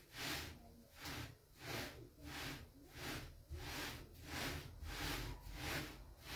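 Palms rubbing and pressing a round Kabyle semolina flatbread (aghrum) as it is turned on a hot griddle: a regular run of soft swishes, about two a second.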